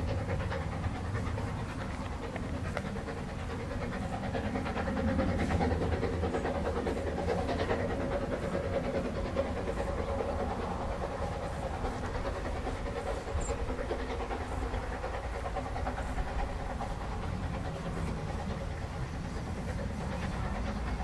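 Narrow-gauge steam locomotive No.1 'Talyllyn' working with its train, its exhaust beats coming as a steady run of chuffs.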